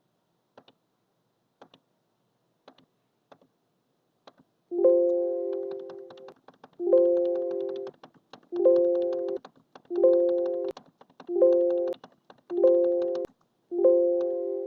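Background music: piano chords struck one after another, each fading before the next, beginning about five seconds in. Before that there are only faint scattered clicks.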